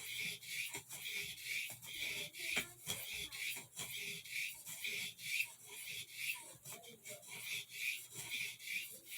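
Small pocketknife blade being stroked back and forth on an Arkansas whetstone: a steady rhythm of short, gritty scrapes, about two strokes a second, as the edge is worked to raise a burr.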